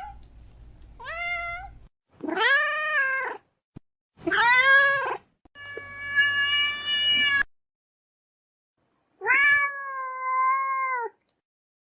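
Domestic cat meowing: about five separate meows, some short and bending up then down, one long and level near the middle, each cut off by a stretch of silence.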